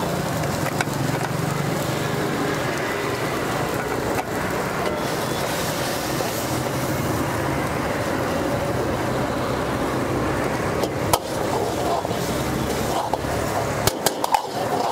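A steady rumbling roar under a wok at a street food stall, with a metal ladle clanking against the iron wok a few times near the end as sauce is stirred.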